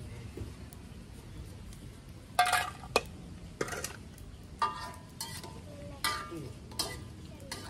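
Metal spatula and ladle scraping and clanking against a wok while stirring food. Sharp metallic strikes come about once a second from about two seconds in, each with a short ring.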